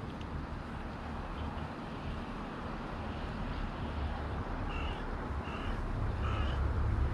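A bird calls three times in quick succession, short harsh calls about five to six and a half seconds in, over steady wind noise; a low wind rumble on the microphone grows louder near the end.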